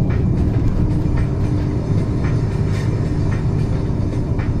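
Truck cab interior at highway speed: a loud, steady low rumble of engine and road noise, with frequent small rattles and clicks from the cab.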